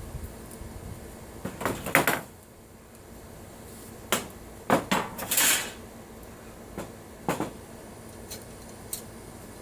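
Light metal clanks and knocks, with one short scrape about halfway through, as an aluminium brace is worked and smoothed with hand tools.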